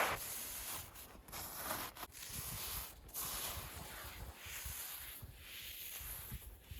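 Footsteps on ground covered in loose volcanic ash, an irregular step about once a second, over a steady rustling haze.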